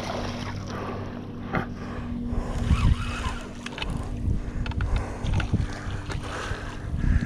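Wind rumbling and thumping on the microphone while a spinning reel is cranked and a small snagged paddlefish splashes at the surface, over a steady low hum.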